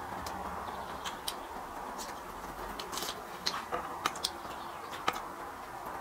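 Eating sounds of someone handling and chewing salmon belly: scattered sharp clicks and crunches, most of them in the second half, over a steady background hiss.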